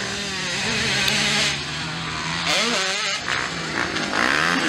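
Motocross dirt bike engines revving, their pitch rising and falling repeatedly as the riders work the throttle through corners, with a sharp rise about three seconds in.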